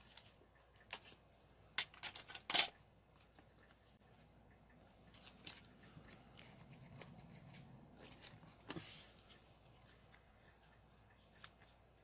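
Paper and cardstock pieces being handled on a craft mat: scattered short rustles, scrapes and light taps, with a cluster of the loudest ones about two seconds in and another near the end.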